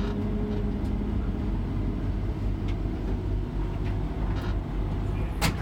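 Truck engine running with a steady low rumble. There is one sharp click near the end.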